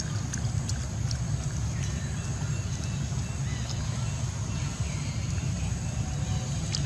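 Outdoor ambience: a steady low rumble with a faint high whine, broken by scattered faint clicks and a few short high chirps.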